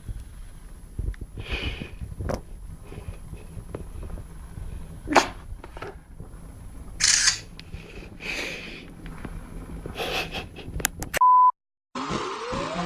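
Low rumble of a handheld recording with scattered short rustles and knocks, several louder, then a short steady beep near the end that cuts off into a moment of silence.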